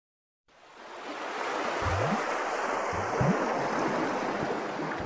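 Rushing water sound effect, fading in over the first second and then steady, with a couple of low rising gurgles about two and three seconds in.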